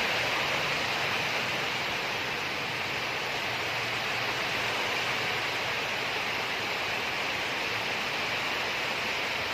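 Steady, even background hiss with no distinct knocks, clicks or handling sounds.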